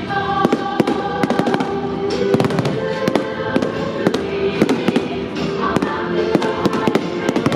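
Aerial fireworks exploding in rapid succession, sharp bangs and crackles several times a second, over loud music with sustained tones.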